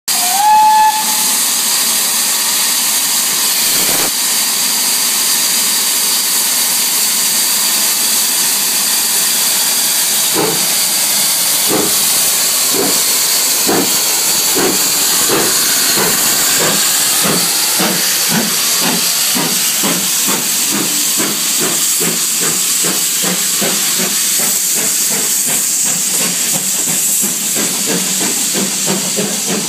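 GWR Manor class 4-6-0 steam locomotive Foxcote Manor starting away with a train, with a steady hiss of escaping steam. A brief whistle sounds at the start. From about ten seconds in, the exhaust beats begin slowly and quicken steadily as the engine gathers speed.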